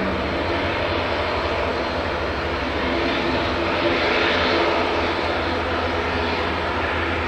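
Airbus A380's Engine Alliance GP7200 jet engines at taxi power: a steady rushing jet noise over a low hum, swelling slightly about four seconds in.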